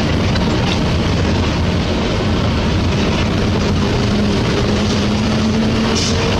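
Steady engine and tyre noise heard from inside a vehicle's cab driving on a gravel road, as an orange Mitsubishi Fuso dump truck passes close alongside.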